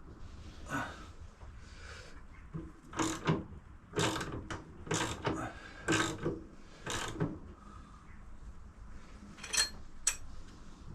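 A series of short clunks and knocks from a motorcycle engine being shifted and lifted into its frame, about one a second for a few seconds in the middle, then two more near the end.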